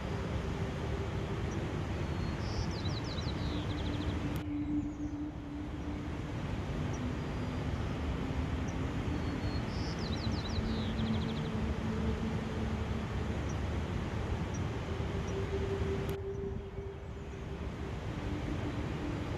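Steady outdoor rush of nature ambience, with a small bird singing twice, each time a short run of quick falling notes. The rushing noise briefly dips twice.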